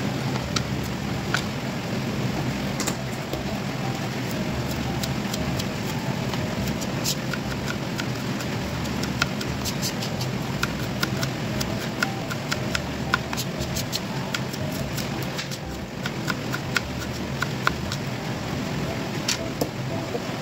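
Chef's knife slicing shallots on a plastic cutting board: many light, irregular clicks of the blade meeting the board, over a steady background rush.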